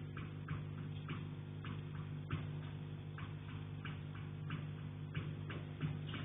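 Light, regular tapping on an attic window, about three taps a second, over a steady low hum.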